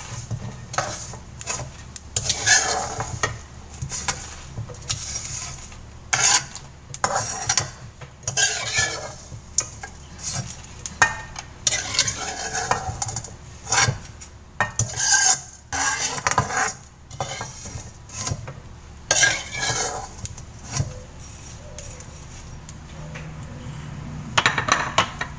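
Metal utensil scraping and clinking against a pan, irregularly and repeatedly, as fried noodles are lifted out of hot oil to drain, with the oil sizzling faintly underneath.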